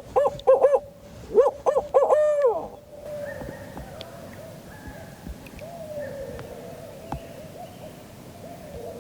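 Barred-owl hooting: a loud rhythmic run of short hoots ending in a drawn-out falling 'you-all' note, the 'who cooks for you' pattern, in the first three seconds. Fainter hoots follow.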